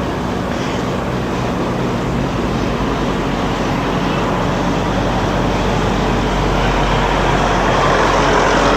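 Motor vehicle engine running with a steady low hum, growing slightly louder toward the end.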